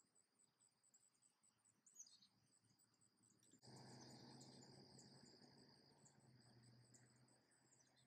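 Faint insect chorus: a steady high-pitched cricket-like trill with regular pulses. Just before halfway, a low steady hum comes in suddenly and then slowly fades.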